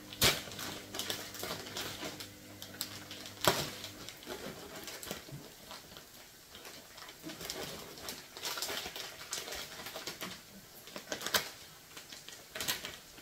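Plastic noodle packaging crinkling and crackling as it is worked open with a knife, with a few sharp snaps of the plastic, the loudest about a second and three and a half seconds in and twice near the end.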